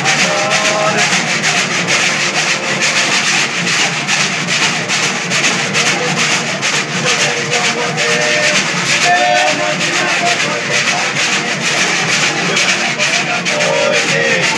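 Cururu playing: a ganzá, the notched wooden scraper, rasped in a fast steady rhythm, over violas de cocho with short plucked notes here and there.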